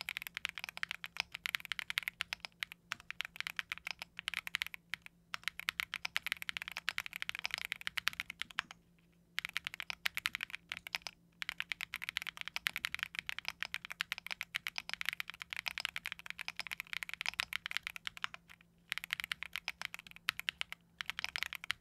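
Fast, continuous typing on a Nemo67 mechanical keyboard built with Neon switches, a polycarbonate (PC) plate, full foam and XMI 2551 keycaps: a dense run of key clacks, with brief pauses about nine seconds in and shortly before nineteen seconds.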